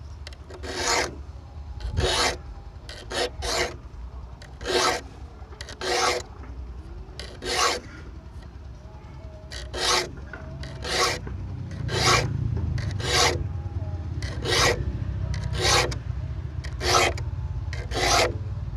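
A Bahco saw file scraping across the steel teeth of a hand saw as it is sharpened, in about fifteen separate strokes, roughly one a second and unevenly spaced.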